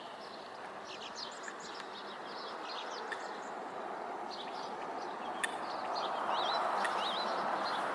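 Small birds chirping and twittering in short, scattered calls, a few wavering ones near the end, over a steady rushing background.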